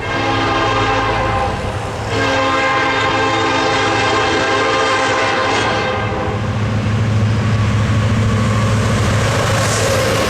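Diesel locomotive horn, a multi-chime chord, sounded in two blasts: a short one of under two seconds, then a longer one of about four seconds. After the horn stops, the locomotives' engines drone steadily and the train's wheels run on the rails.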